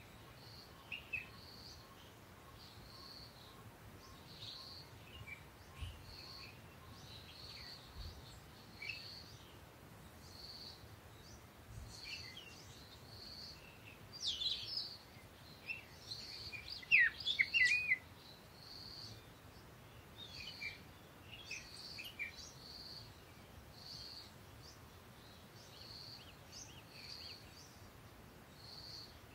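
Birds chirping: a short high note repeated about once a second, with scattered chirps and a louder flurry of chirps around the middle.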